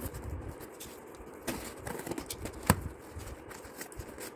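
Cardboard shipping box being handled and opened: scattered rustles, scrapes and light taps, with one sharp click a little under three seconds in.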